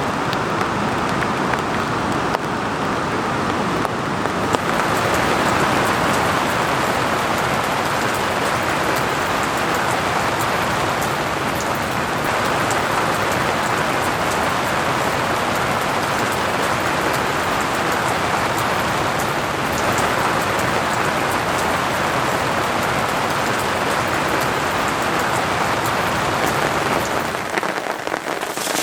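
Steady rain falling, a dense even hiss with fine ticks of drops striking a surface; the low part of the sound falls away near the end.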